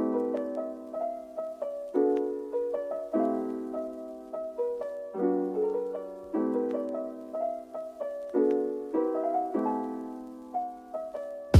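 Background music: a gentle piano melody over soft chords, notes struck and left to fade.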